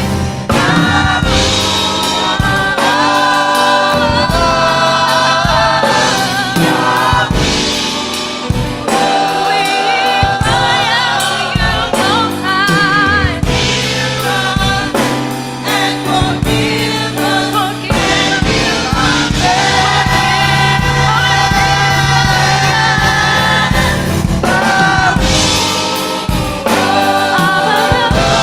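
A choir singing in harmony, several voices holding and moving between long sustained notes with vibrato, over a low sustained accompaniment.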